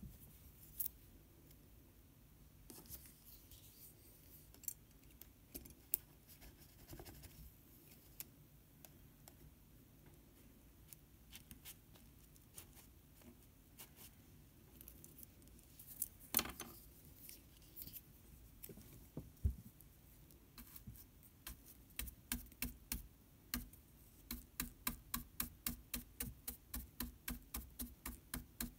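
Faint scratches and scattered taps of a paintbrush working on paper, turning near the end into a quick, even series of dabbing taps, about two to three a second.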